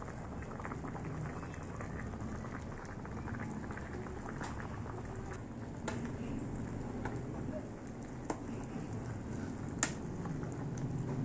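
Jackfruit simmering in coconut milk in a pot: a steady bubbling with many small pops. A few sharper clicks stand out, the loudest about ten seconds in.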